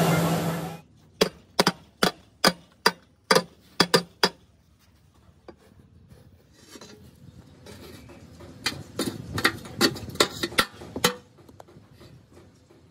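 A loud steady machine drone cuts off under a second in. Then a quick run of about ten sharp metal knocks, roughly three a second, with a second, looser cluster of knocks later on: blows on a steel sand-casting flask as it is knocked loose from the moulding sand.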